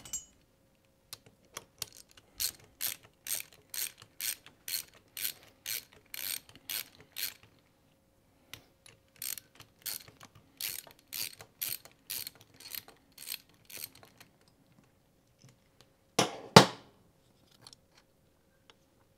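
Hand ratchet clicking in two runs of steady strokes, about two clicks a second, as a cylinder head bolt is undone and spun out. A single loud clack near the end.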